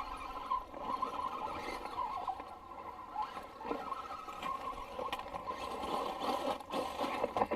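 Scale RC rock crawler's small electric motor and gear drivetrain whining as it crawls, the pitch wavering with the throttle, with a few sharp clicks near the end.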